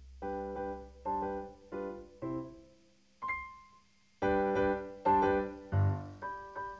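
Background piano music: chords struck about every three-quarters of a second, a lull with a single high note, then fuller, louder chords from about four seconds in.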